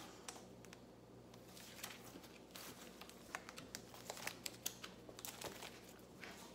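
Plastic wrap crinkling and crackling faintly as it is pulled off packaging by hand, in scattered small crackles that get busier about halfway through.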